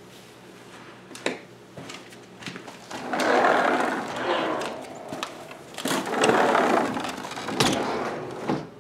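Sliding glass patio door running along its track, two long rolling runs about three and six seconds in, with sharp clicks and knocks around them.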